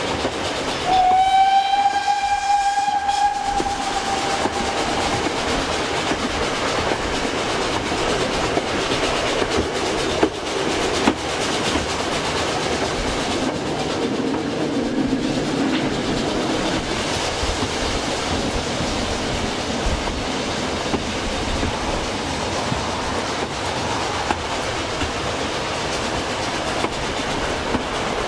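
A narrow-gauge steam locomotive's whistle blows once, a single steady tone lasting about four seconds, starting about a second in. Under it and throughout, the carriage runs steadily on the track with a clickety-clack over the rail joints.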